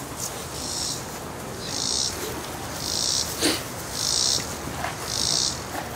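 Insects buzzing outdoors in a high, regular pulsing chorus, one buzz about every second, over a low background rumble, with one brief louder sound about halfway through.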